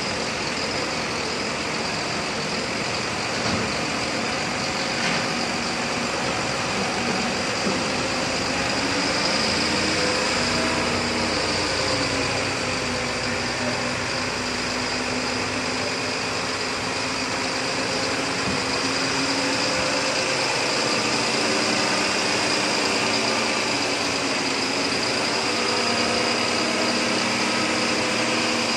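Truck engine running steadily while its hydraulic hook-lift arm lowers a large container, with a steady high whine over it and the engine pitch wavering slowly as the load changes.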